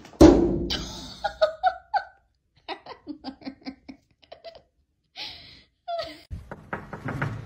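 A person laughing in short rhythmic bursts, breathy toward the end, after a sudden loud thump right at the start.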